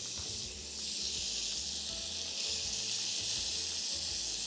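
Sea bass fillets frying in oil in a frying pan, a steady sizzle, while lemon juice drips into the hot pan through a strainer.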